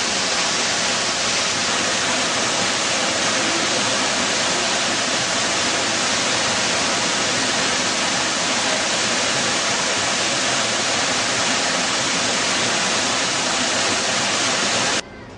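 Waterfall rushing steadily as it pours over rock into a pool, a loud, even wash of water noise that cuts off suddenly near the end.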